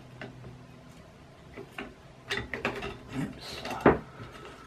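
Clicks and knocks of a metal bracket plate and its wheels being shifted by hand against an aluminium extrusion frame while the bolt holes are lined up. There are a few faint clicks, a cluster of clicks a little past the middle, and one sharp knock near the end.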